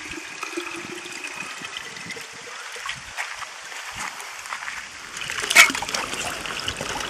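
Spring water trickling and splashing into a glass mason jar held under the spring's outflow, with one sharp knock about five and a half seconds in.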